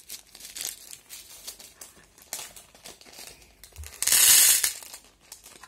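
Small plastic bag of beads crinkling and rustling as it is handled, with scattered light clicks, and a much louder burst of rustling about four seconds in.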